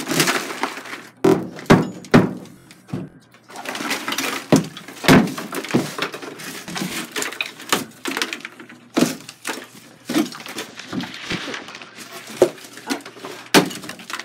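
Drywall being broken and torn off a wall, with irregular cracks and thuds and debris crumbling between them.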